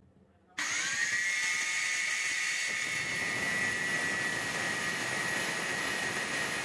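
Angle grinder's cut-off disc cutting through a flat steel bar: a steady, high-pitched whine over a grinding hiss, starting abruptly about half a second in.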